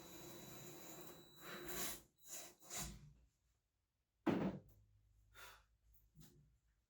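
Cordless drill running at low speed with a steady motor whine, working into a fiberglass hood. About a second and a half in it stops, followed by three short bursts of the trigger. A sharp knock comes a little past halfway.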